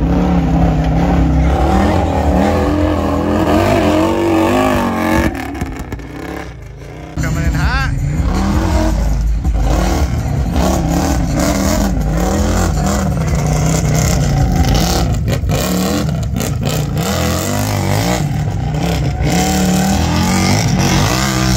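Big-tire ATV engine revving hard and unevenly, pitch rising and falling over and over as it powers over obstacles, with a brief dip in level about six seconds in.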